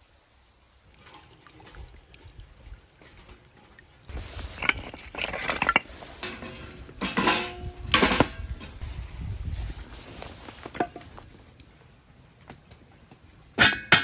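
Split firewood logs being fed into a steel barrel stove, knocking and clanking against the metal several times over a crackling wood fire. Near the end comes one loud ringing metallic clank as a cast-iron pot goes onto the stove.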